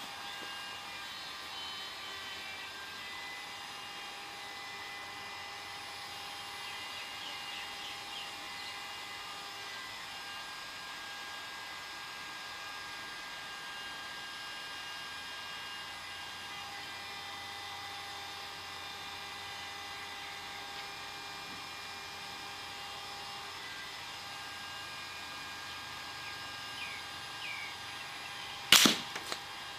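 A steady background hum, then a single sharp crack about a second before the end: an air rifle shot and its pellet striking the wooden target, heard at the target some 35 m from the rifle.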